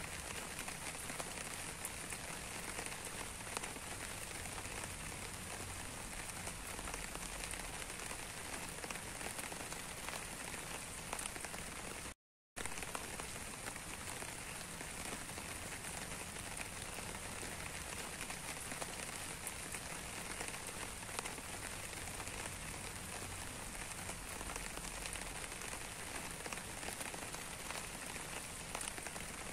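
Steady rain falling, with individual drops ticking close by. The sound drops out completely for a split second about twelve seconds in.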